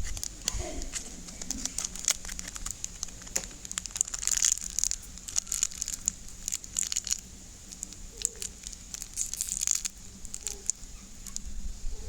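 Irregular crinkling and crackling: a rapid scatter of small clicks, heaviest about four and nine seconds in.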